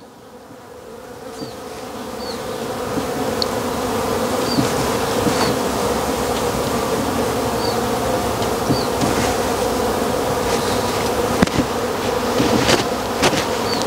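Swarm of honeybees buzzing in a steady, dense hum that swells in over the first few seconds and then holds; the bees are drawn by the smell of fresh honey.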